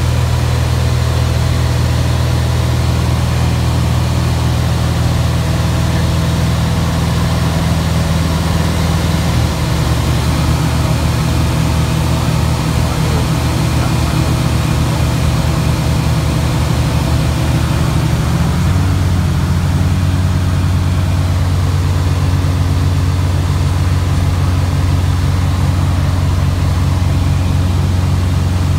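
Cessna O-2A cockpit engine drone in flight while the front engine is shut down and its propeller feathered, leaving the rear engine running. About ten seconds in the drone starts to pulse and beat, and a little past halfway it settles into a new steady drone.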